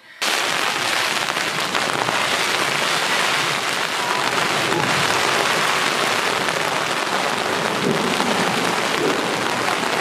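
Steady rain falling on a beach, with waves breaking at the shore: a constant hiss that begins just after the start and keeps on.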